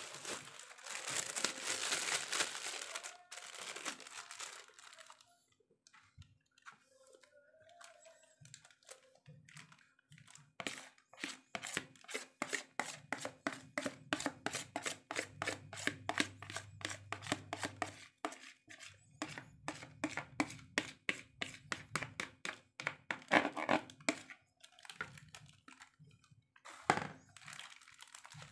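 Clear plastic bag rustling and crinkling, then a long run of quick, regular scraping strokes as thick bait batter is scraped from a plastic bowl into the bag with a metal spoon, with a few sharper knocks near the end.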